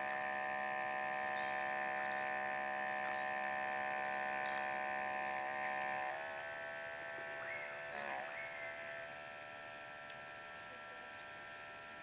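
OUTIN Nano portable espresso machine's electric pump running with a steady hum as it extracts a shot of espresso. About halfway through, the pitch of the hum shifts and it becomes quieter.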